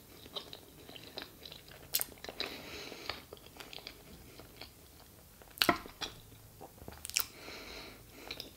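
Close-miked chewing and wet mouth sounds of a person eating bites of moist red velvet sponge cake, with a few sharp clicks, the loudest about two, five and a half and seven seconds in.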